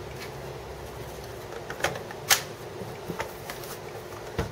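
Battery of a Dell XPS 17 (L702x) laptop being snapped into its bay, a few sharp plastic clicks with the loudest about two seconds in, then lighter clicks and a knock near the end as the laptop is turned over on the desk.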